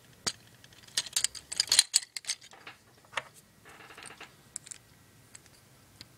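Hard plastic toy parts clicking and clattering as a gun accessory is pressed into a Construct-Bots Megatron figure's hand. A quick run of clicks comes about a second in, followed by a few scattered single clicks.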